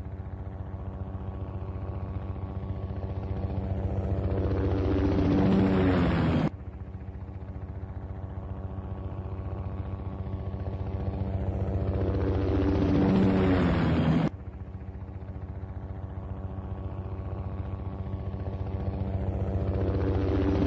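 Helicopter flyby sound effect: fast rotor chop with a steady hum, swelling louder until the pitch drops as it passes. It then cuts off abruptly and starts again, the same pass looping about every eight seconds, twice cut within this stretch.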